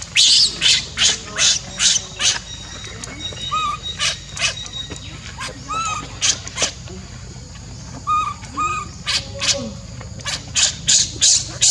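Baby monkey screaming in short, shrill, repeated cries, about three a second, in runs that thin out in the middle and pick up again near the end: a weaning tantrum after being refused milk.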